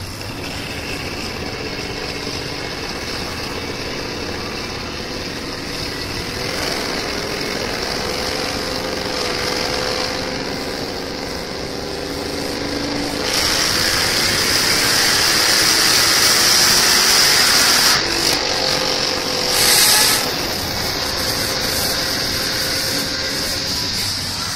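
Ford SVT Lightning's supercharged 5.4-litre V8 running under load on a chassis dyno during a pull. It builds louder through the first half, holds at its loudest, then drops off suddenly about three-quarters of the way through, followed by one short burst of revs about two seconds later.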